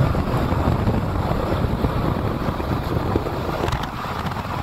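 Steady low rumble of a moving vehicle with wind buffeting the microphone.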